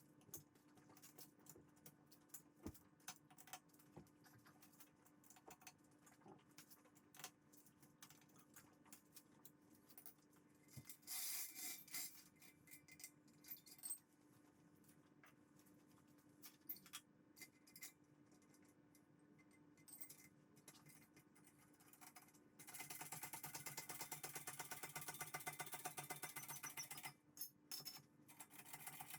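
Faint clicks and knocks of hand tools and car jacking equipment being handled. Near the end comes about four seconds of rapid, even mechanical ratcheting.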